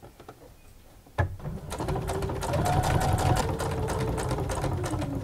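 Electric domestic sewing machine starting with a sharp click about a second in, then stitching a seam at a steady speed, the needle ticking rapidly over the motor's whine. It slows near the end.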